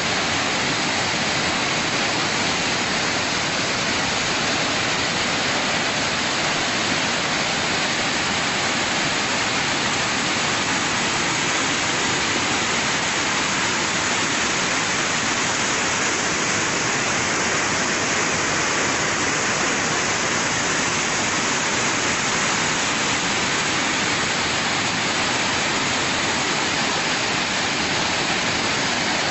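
Steady rushing of muddy floodwater in heavy rain: an even, unbroken noise that does not rise or fall.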